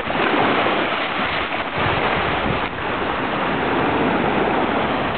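Storm surf breaking against a stone quay and seawater washing across the flooded paving: a steady rushing of water.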